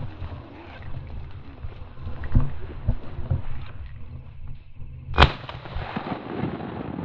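Wind rumbling on the microphone in an open marsh, with a few soft thumps and one sharp knock about five seconds in.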